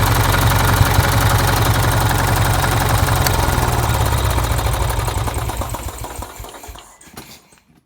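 Robin EY21 engine on a Denyo engine welder running steadily, then shut off about five seconds in and slowing to a stop within about two seconds.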